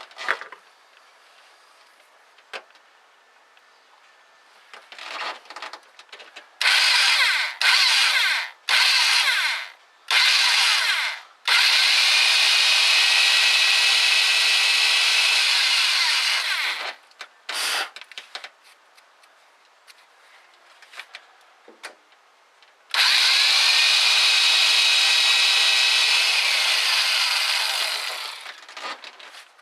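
Electric drill boring into the Cummins turbodiesel's exhaust manifold to fit a pyrometer probe: four short bursts, then two long runs of about five seconds each with a brief burst between them. The motor's whine drops in pitch as each long run winds down.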